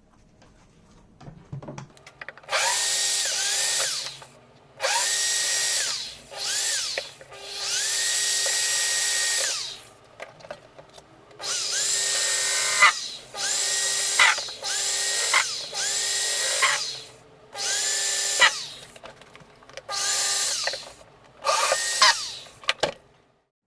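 Cordless drill-driver run in about a dozen short bursts. Each burst spins up to a steady whine and then stops, with brief pauses between.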